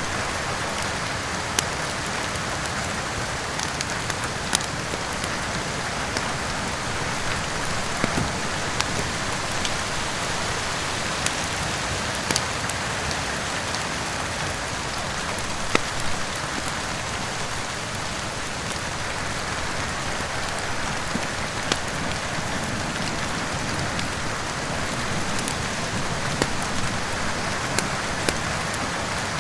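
Steady heavy rain with scattered sharp pops and crackles from a wood fire in a fireplace.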